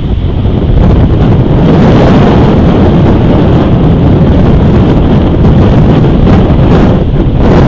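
Strong wind blowing across an outdoor camera's microphone: a loud, steady rushing rumble of wind noise.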